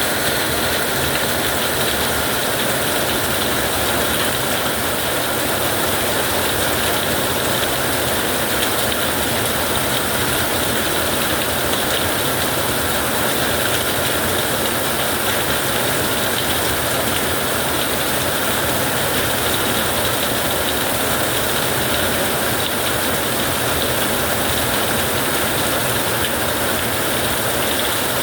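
Heavy rain falling steadily, an even hiss with no thunderclaps.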